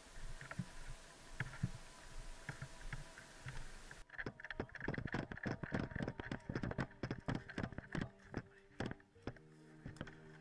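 Irregular clicking and knocking of footsteps and handled gear as players move, dense over the middle of the stretch after an abrupt drop in background hiss. Music comes in near the end.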